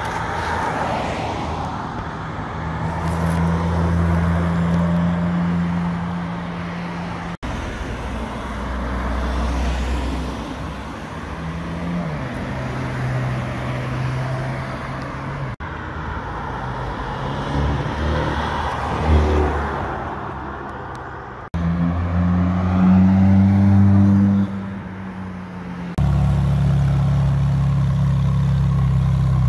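A run of short clips of supercar engines in city traffic, joined by abrupt cuts: cars driving and accelerating past with engine revs rising and falling, including a Ferrari 458's V8. Near the end a Ferrari 458 Speciale's V8 runs steadily at idle.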